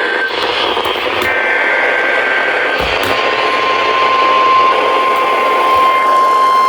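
Weather radio receiver hissing with loud static. About halfway through, a steady single-pitch alert tone comes in under the hiss, the warning alarm tone that comes before a new severe thunderstorm warning.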